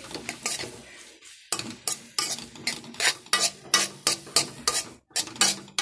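Spatula scraping and clattering against a metal kadhai as fried Maggi noodles with chopped vegetables are stirred, a loud clatter. Softer scraping at first, then sharp strokes about two to three a second.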